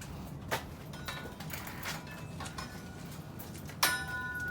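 Light clicks of metal parts being handled, then near the end one sharp metallic clink that rings on with a steady, clear tone.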